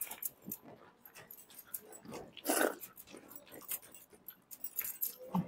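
Close-up eating sounds of people eating rice with their fingers: chewing, lip smacks and small clicks, with one short, louder sound about two and a half seconds in.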